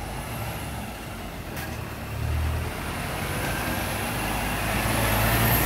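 Intercity coach's engine running as the bus moves through the terminal: a steady low hum with a faint high whistle rising and falling over it, growing louder toward the end.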